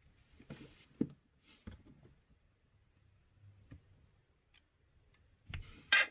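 Small airsoft hop-up parts being handled on a workbench: scattered light clicks and taps with brief rustles, a sharp tap about a second in and a louder short rustle near the end.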